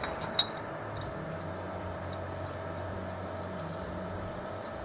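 Light clicks and ticks of metal parts being fitted by hand on a lathe bar feeder, one sharp click about half a second in, over a steady machine hum.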